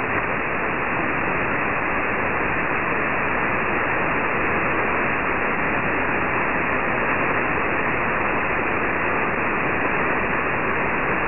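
Steady shortwave hiss and static from an RFspace SDR-IQ receiver in USB mode on an empty channel, with no voice: the numbers station's transmission has ended and the frequency is dead air until the next message.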